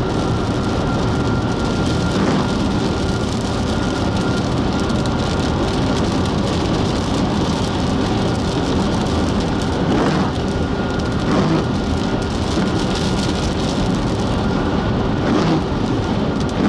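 Heavy rain hitting a moving car's windshield and body, mixed with steady tyre noise on the wet interstate. A few brief swishes now and then, with the windshield wiper sweeping across the glass.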